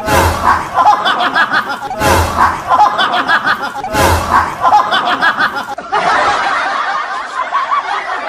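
Snickering laughter, the same laugh heard three times about two seconds apart, each time opening with a low thump, then a denser stretch of laughter from about six seconds in.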